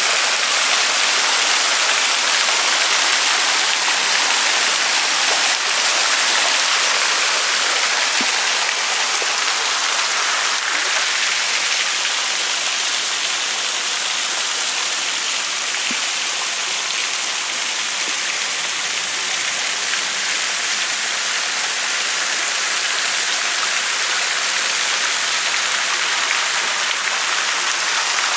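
Steady rush of splashing water, loud and even, easing a little in the middle.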